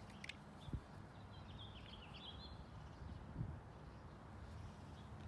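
Quiet outdoor background with a bird chirping faintly about a second in. A few small clicks and soft knocks come from a screwdriver backing screws out of a metal umbrella crank housing.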